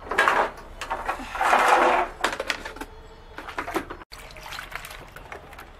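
Water splashing into a tub in two rushes, the second longer and loudest, followed by scattered knocks and clatters of plastic fridge trays being handled as they are set to soak in soapy water.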